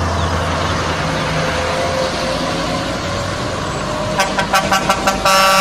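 Heavy trucks driving by with a steady engine rumble. About four seconds in comes a quick run of short horn toots, then a long truck horn blast near the end.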